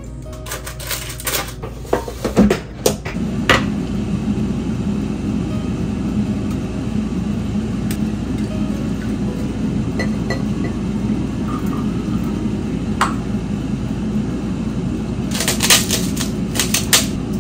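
Air fryer with its basket clicked into place, then running with a steady fan hum. Light clicks and clinks of kitchenware and bottle caps come over the hum near the end.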